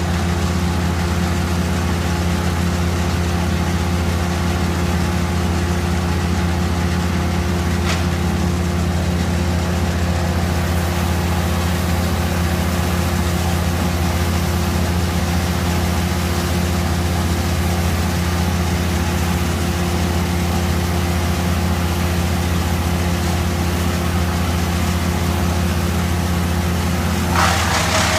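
A large engine running steadily at a constant speed, a deep even drone with no revving. Near the end a rushing, crackling noise starts over it.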